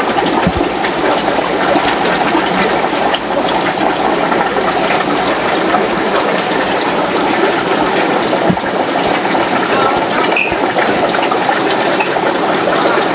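Steady rushing of water from aquarium filtration running along rows of fish tanks, with a brief high beep about ten seconds in.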